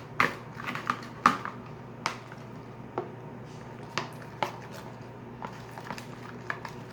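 A knife stirring glue in a bowl, clicking against the bowl at irregular intervals, with the loudest clicks near the start.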